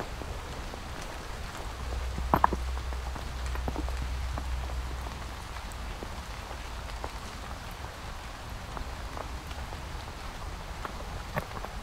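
Light rain pattering: an even hiss with many small irregular drop ticks, and a couple of louder taps about two seconds in.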